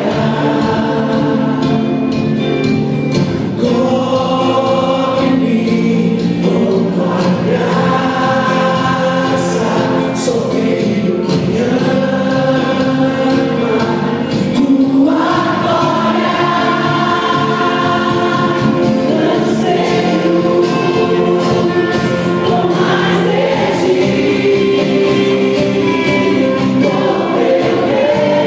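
Christian worship song: several voices singing held, drawn-out notes together over a steady sustained accompaniment.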